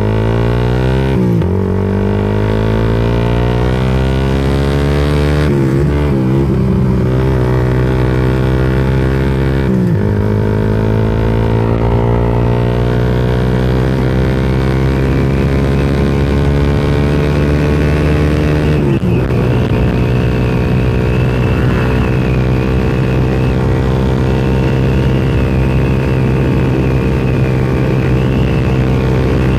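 Suzuki Satria FU fuel-injected single-cylinder motorcycle engine running through an aftermarket Tritech Ronin Katana SE exhaust while riding. The engine pitch climbs steadily and drops back at gear changes about a second in, around 6 and 10 seconds in, and near 19 seconds. After the last change it holds a fairly steady pitch.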